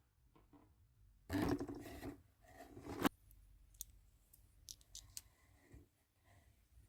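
Packaging being handled and opened by hand: a loud scratchy cutting or scraping noise, a second shorter one ending in a sharp click about three seconds in, then scattered small clicks and taps.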